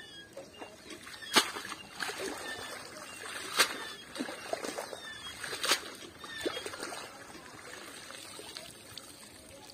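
Pond water splashing and trickling as a cast net is swished in the shallows and lifted out, with three sharp splashes about two seconds apart in the first six seconds, then water running off the net.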